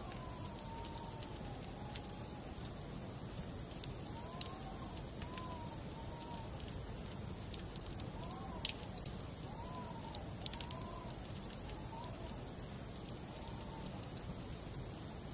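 Wood fire burning in a fireplace, crackling with irregular sharp pops over a steady low rumble of the flames. Faint wavering whistles rise and fall now and then beneath the crackle.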